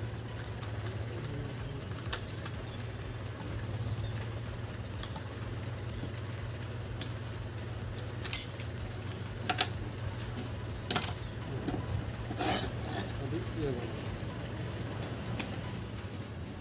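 Scattered metallic clicks and clinks as the blade is changed on a small handheld cutting machine, with the machine switched off, over a steady low hum. The clinks come at irregular moments, the loudest about eight and eleven seconds in.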